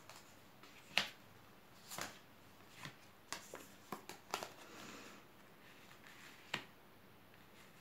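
Tarot cards being dealt from the deck and laid down on a cloth-covered table: a string of short card flicks and soft slaps with some sliding rustle, the sharpest about a second in and another near the end.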